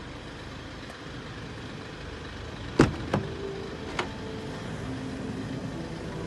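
Mercedes-Benz V-Class sliding side door being opened: a sharp latch clack just under three seconds in, a second click right after it, and a lighter click about a second later as the door slides back.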